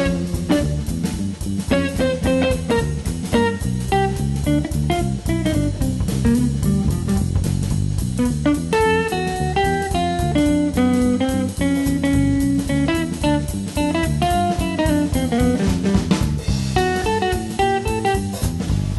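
Instrumental background music with guitar and drums, at a steady beat.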